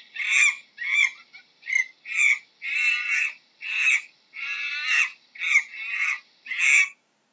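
Monkey calling: a run of short, shrill, harsh calls, roughly one or two a second, with brief gaps between them.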